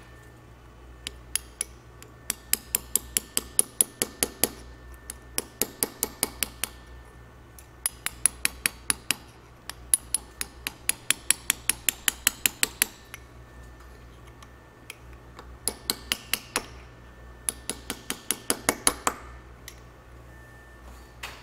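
A hammer driving a chisel against a steel driveshaft yoke, cleaning up the yoke by hand. The strikes come as light, rapid, ringing taps, about four or five a second, in several runs with short pauses between.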